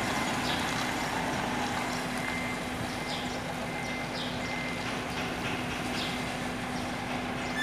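Hino 700 tractor unit's diesel engine running at a distance with a steady low hum as the truck slowly reverses its container trailer onto a weighbridge.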